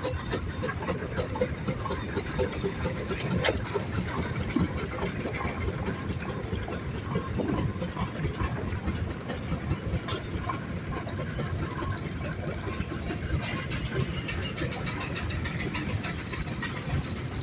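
Steam engines running: a steady low mechanical rumble with hissing steam and a few clicks, no whistle sounding.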